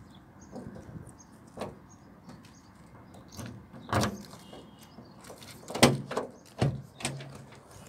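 Rear door handle and latch of a Toyota Coaster bus worked by hand: a few separate sharp clicks and knocks, the loudest about six seconds in, as the door is unlatched.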